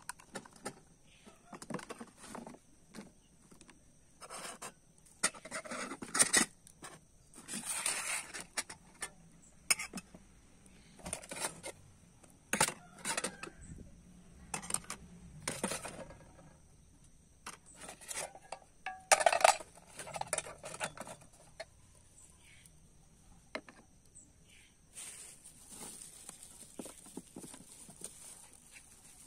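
Pieces of a DS-308 camping cookware set being handled and set down on a table: scattered clicks and knocks of light plastic bowls and aluminium pots and lids. Near the end, plastic wrapping rustles as a wrapped pot is picked up.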